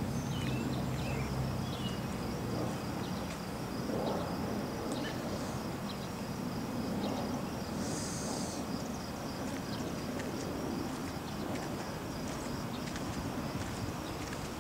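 Outdoor ambience: an insect chirping steadily in a fast, even, high rhythm over a low background rumble. A few short bird chirps come about a second in, and a brief hiss near the middle.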